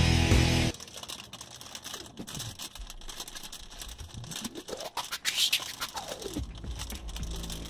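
Background music track cuts off abruptly about a second in. A quieter stretch of crackling, scratchy clicks with a few sliding tones that rise and fall follows, and the music comes back near the end.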